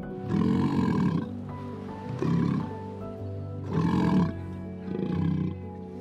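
Sea lion barking four times, short hoarse calls roughly a second apart, the first and third the longest, over background music.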